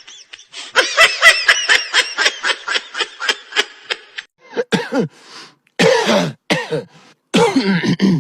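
A person laughing in a quick run of short "ha" pulses for about three seconds, then three separate short coughs in the second half.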